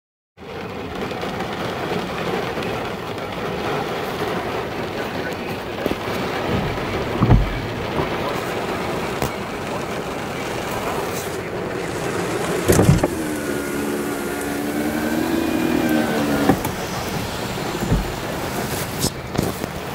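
Wind-driven rain from a severe thunderstorm squall line washing steadily over a parked vehicle, heard from inside, with a few dull thumps against the body.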